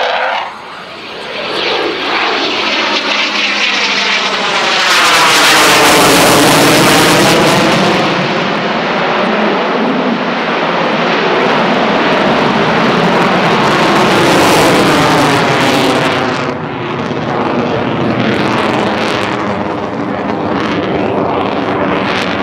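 Eurofighter Typhoon's twin EJ200 jet engines at display power during a pass. It is loudest a few seconds in, with sweeping rising-and-falling tones as the jet goes by. The sound eases about two-thirds of the way through, then swells again as it turns.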